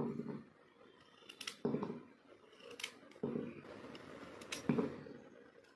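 A knife slicing a peeled raw taro root (arbi), held in the hand, into small rounds: about half a dozen short cuts at uneven intervals, some in quick pairs.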